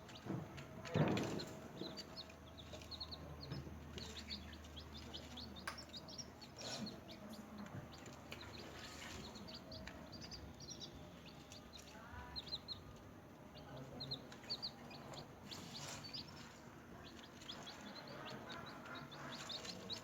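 Newly hatched chicks peeping: many short, high chirps, with one loud knock about a second in.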